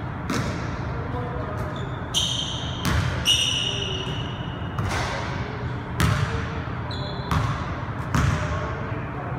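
A basketball bouncing on a hardwood gym floor: about seven separate thuds at uneven intervals, each echoing through the large hall. Sneakers squeak sharply on the floor twice, about two and three seconds in.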